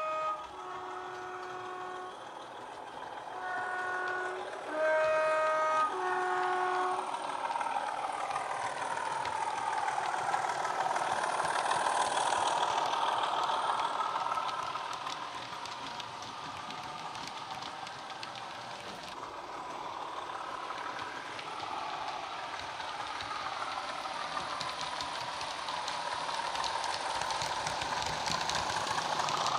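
Heljan Class 27 model locomotive's DCC sound decoder, through a 27mm bass-enhanced speaker, sounding its two-tone horn: about five notes alternating high and low over the first seven seconds. It then plays the locomotive's diesel engine sound as it runs past, loudest about ten to fourteen seconds in.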